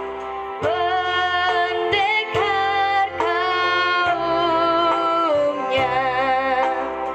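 A young woman's solo voice singing an Indonesian song, a run of held notes with vibrato, over a steady sustained accompaniment.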